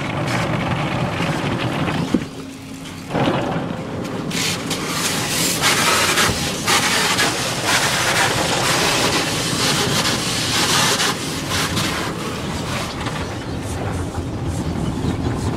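Automatic car wash heard from inside the car: a continuous rushing of water spray and soft-cloth strips sweeping over the windshield and body. It drops off briefly about two seconds in, then comes back.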